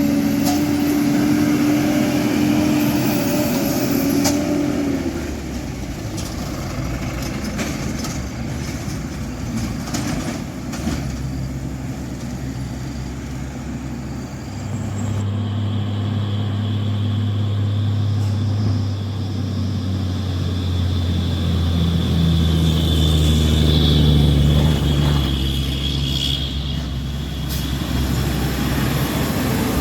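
Heavy diesel truck engine pulling hard on a steep climb, its low note rising slowly through the middle of the stretch, with a thin high whine above it.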